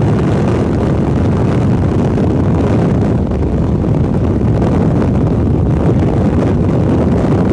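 Strong wind buffeting the microphone: a loud, steady rush.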